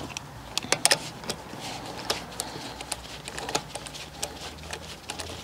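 Sharp, irregular metallic clicks and clinks from a wrench and the chrome-capped wheel nuts at a car's front wheel as the nuts are worked loose and off the studs.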